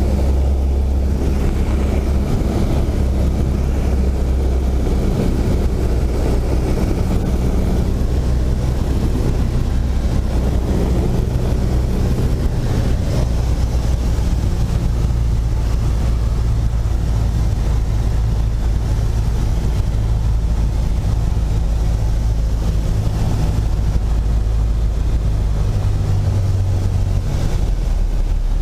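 Single piston engine and propeller of a 1960s four-seat light airplane droning loudly, heard from inside the cabin through final approach and the landing roll. The low hum shifts in pitch a couple of seconds before the end.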